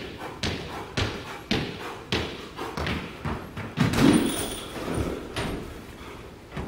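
Sneakers striking a hardwood gym floor in quick steps and hops, about two a second, with a heavier, deeper thud about four seconds in as a player's body drives into a hanging heavy bag in a form tackle.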